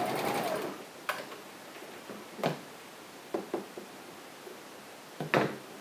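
Electric sewing machine running and stopping under a second in, then a handful of scattered sharp clicks and knocks from the machine and fabric being handled at the needle.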